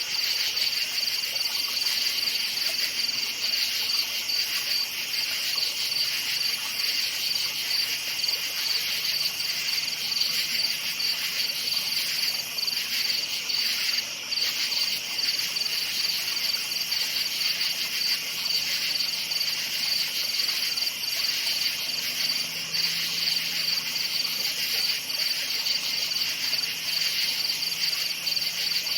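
Crickets chirping in a dense, continuous chorus, a steady high trilling at two pitches, with a faint low hum underneath.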